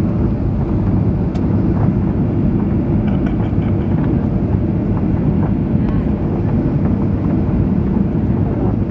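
Steady cabin noise inside a Boeing 737-700 on landing approach with flaps extended: the even, low drone of its CFM56 engines and the airflow over the airframe.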